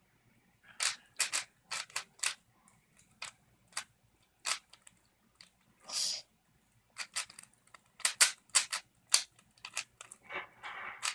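A 3x3 Rubik's cube being turned by hand: sharp, irregular plastic clicks as its layers snap round, some in quick runs, with a brief rustle about six seconds in and another near the end.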